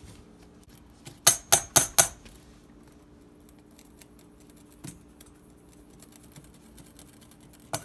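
A mesh sieve of flour being tapped against its bowl to sift it: four quick, sharp metallic taps about a second in, then a single softer tap later and another near the end, over a faint steady hum.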